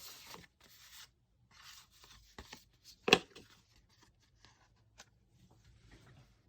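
Parcel packaging being handled and torn open: short bursts of rustling and tearing, with one sharp knock about three seconds in.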